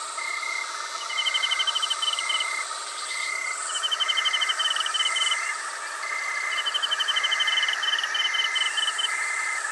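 Night-time insect chorus: rapid buzzing trills in bursts of about a second, repeating every second or two, over a string of evenly spaced short high chirps and a steady high hum.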